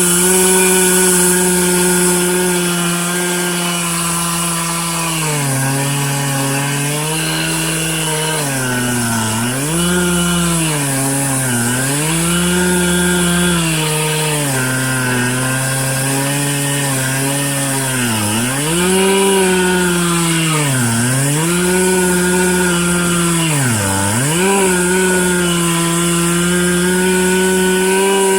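Stihl MS 441 C-M Magnum two-stroke chainsaw running at high revs, ripping lengthwise through a red oak log. After the first few seconds the engine note sags and recovers every couple of seconds as the cut loads it down.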